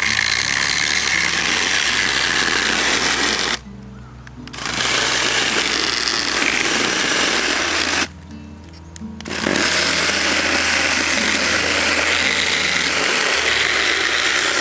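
Kebtek 16.8V battery-powered handheld mini chainsaw cutting through a log, running loud in three long stretches with two short pauses, about four and eight seconds in.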